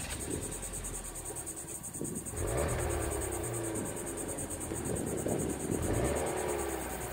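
Ford Fiesta ST's 1.6-litre turbocharged EcoBoost inline-four heard at its stock dual-tip exhaust, idling just after a hot start. The revs rise about two and a half seconds in and swell again a few seconds later.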